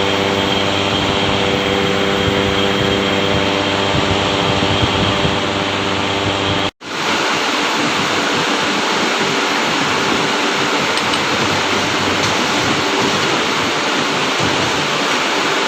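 Workshop machinery running with a steady hum of several even tones. About seven seconds in the sound cuts out for an instant and comes back as a noisier, steadier rush with weaker tones.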